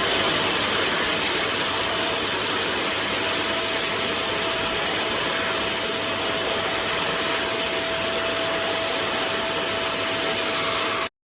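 QuickFix 1600-watt 20-litre wet/dry vacuum cleaner running steadily: a loud rush of air with a steady whine through it, cutting off abruptly near the end.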